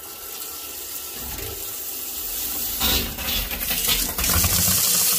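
Water running from a tap into a sink, the flow building up and getting louder over the first few seconds. This is a hot-water tap opened to test the combi boiler's domestic hot water after a repair.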